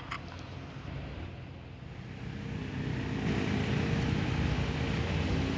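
A motor vehicle's engine running nearby, its low rumble swelling about two seconds in and then holding steady with a hum.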